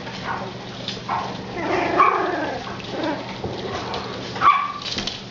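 Dachshund puppies yipping and whining, several short pitched cries as they squabble with each other.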